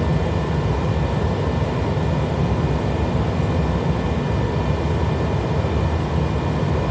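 Steady engine and airflow noise heard inside a jet airliner climbing out after takeoff: an even rush with a faint steady whine above it.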